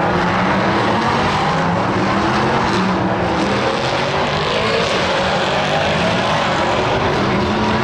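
Engines of several prototype race cars running at racing speed as a group passes through the corners, their mixed engine notes wavering steadily with no let-up.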